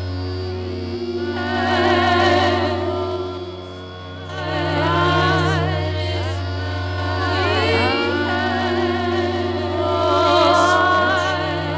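Live experimental electronic music: layered, looped vocal tones with a wavering vibrato swell in and fade out in overlapping waves, several pitches at once, over a steady low drone from speaker feedback. The sound thins out briefly about four seconds in before the voices build again.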